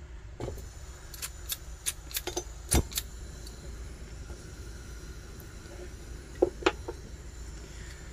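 Old Colligan flint striker scraped repeatedly at a pressure stove's burner: a quick run of sharp scraping clicks over about two seconds, the loudest as the burner catches, then two more clicks near the end.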